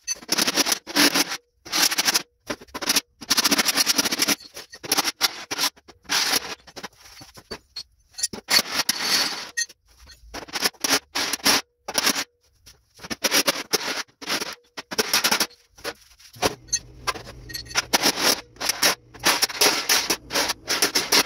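Body hammer striking a dented sheet-steel car fender against a dolly held behind it: rapid metallic blows, several a second, in bursts with short pauses, as the bent metal is straightened.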